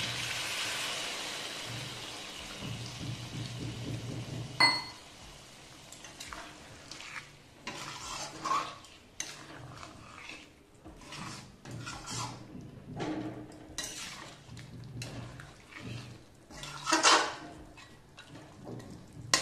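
Water pouring into a hot metal kadhai of frying chicken, hissing and fading over the first few seconds. A ringing metal clank comes about five seconds in. After that a spatula scrapes and clinks against the kadhai as the chicken curry gravy is stirred, with one louder scrape near the end.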